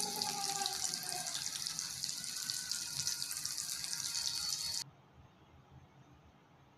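Thread-wrapped chicken pieces deep-frying in hot oil in a small kadhai on a medium flame: a steady, dense sizzling and crackling. It cuts off abruptly near the end, leaving only a faint hiss.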